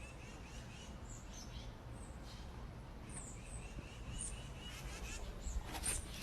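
Faint background ambience with a few short, high bird chirps scattered through it.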